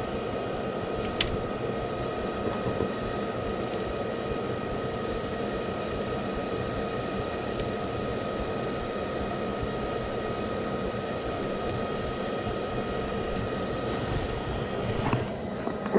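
Two-stage gas furnace running steadily in high fire: the draft inducer and burners make a steady hum and rush, with one sharp click about a second in.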